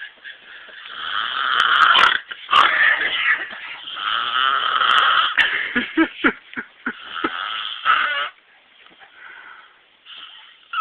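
A man snoring heavily: several long snores, then a run of short choppy snorts about six seconds in, one more snore, and a lull after about eight seconds.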